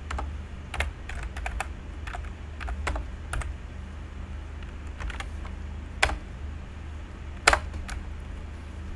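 Computer keyboard typing: a quick run of key clicks for the first few seconds, then a few sparser keystrokes, two of them louder, over a steady low hum.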